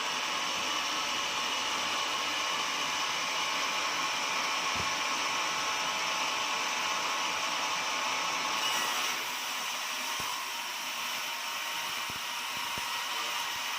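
Portable sawmill running with a steady whine, sawing an oak log. About nine seconds in the sound drops slightly in level and changes character.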